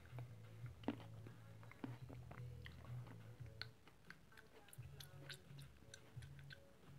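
Faint chewing with soft wet clicks from a mouth squishing a grape.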